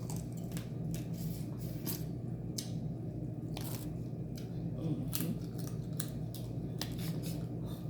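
Crab leg shells being cracked and broken open by hand: a run of sharp, irregular cracks and snaps.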